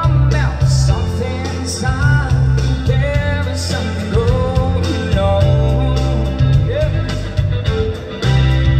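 Live band music with a woman singing into a microphone, amplified through a PA system over a strong steady bass line.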